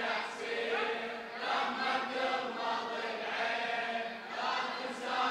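A group of mourners chanting a Shia latmiyya (mourning elegy) refrain together in unison.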